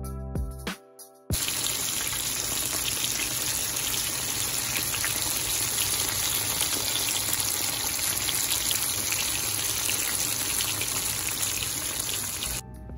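Breaded walleye fillets deep-frying in a skillet of hot oil: a steady, loud sizzle full of fine crackles. It cuts in abruptly about a second in, after a snatch of background music.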